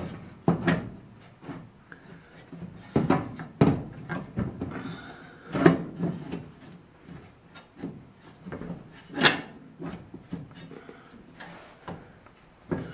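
Irregular clunks, knocks and clicks of metal parts being handled and worked loose, as the cowl vent handle and pivot bolt of a 1948 Ford F1 are taken apart. The loudest knocks come about five and a half and nine seconds in, with some faint rubbing between them.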